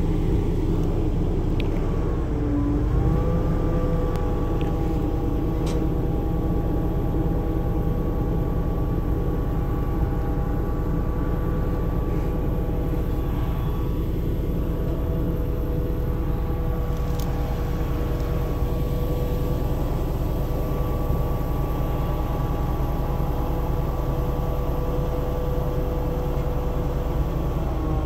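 Forestry bucket truck's engine and hydraulics running as the boom is worked from the bucket: a steady low rumble with a steady whine above it, which dips in pitch and recovers about two to three seconds in.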